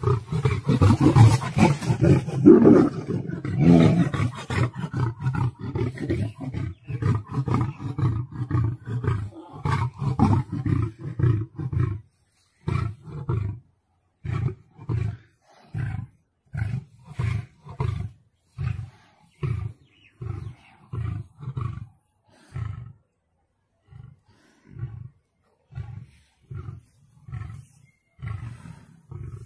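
Male lion roaring: about twelve seconds of loud, deep roaring, then a long series of short, deep grunts about one a second that gradually fade. This is the grunting tail of a lion's roaring bout.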